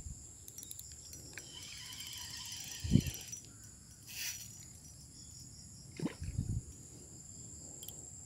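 Steady high-pitched insect chorus, with a few low bumps from handling about three seconds and six seconds in.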